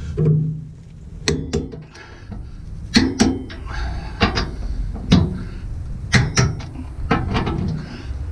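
Socket wrench working a hitch mounting bolt under a pickup truck: sharp metallic clicks, often in pairs, about one a second, as the bolt is tightened and its washers compress.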